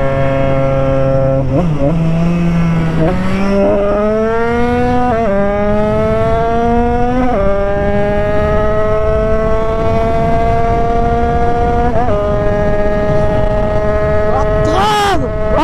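Yamaha DT's single-cylinder two-stroke engine, fitted with a new cylinder and an AC Dev exhaust, pulling hard under acceleration: the pitch climbs, drops sharply at each upshift, about four times in the first half, then runs high and fairly steady at speed.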